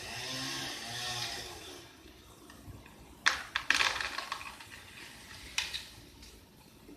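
Chainsaw engine running with its pitch wavering, then dying away and stopping about two seconds in. A cluster of sharp cracks and snaps follows about three seconds in, with one more near six seconds.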